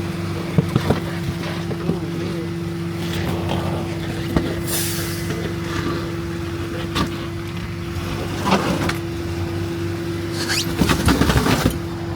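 A motor vehicle running: a steady low hum, with scattered sharp clicks and knocks and a cluster of rattling about eleven seconds in.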